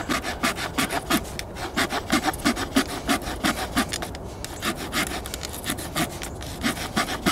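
Glock FM-81 field knife's sawtooth back rasping through a wooden stick in quick back-and-forth strokes, several a second, with a brief pause about four seconds in.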